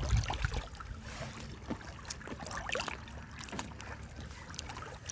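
Boat ride on a river: water sounds and wind on the microphone, with a low buffeting rumble in the first half second and scattered small knocks.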